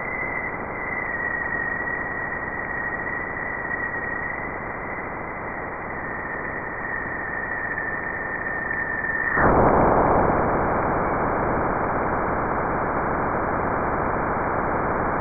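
Juno Waves instrument electric-field data played as sound: a steady hiss with a thin, slightly falling tone from the upstream plasma oscillations in the solar wind. About nine seconds in, the tone cuts out and the hiss jumps suddenly louder, then holds at that level; this is the spacecraft crossing Jupiter's bow shock.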